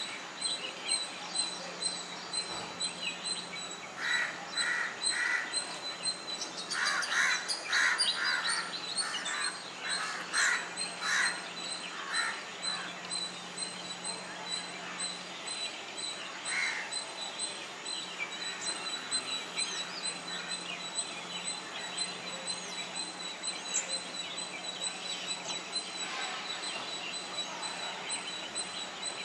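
Ring-necked parakeets calling: runs of short, rapidly repeated squawks, busiest from about four to twelve seconds in, then scattered calls. A faint steady high whine runs underneath.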